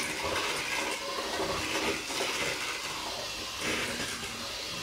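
Electric hand mixer running steadily at high speed, its beaters whisking eggs and sugar in a bowl: a motor whine with a hiss. The sugar can still be heard against the bowl, a sign it has not yet dissolved into the eggs.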